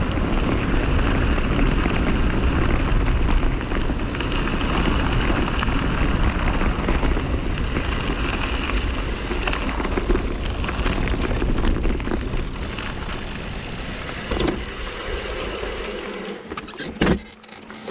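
Wind buffeting the microphone and a mountain bike's tyres rolling over a gravel road, a steady rushing noise that dies down near the end as the bike slows to a stop, followed by a few clicks and a short knock.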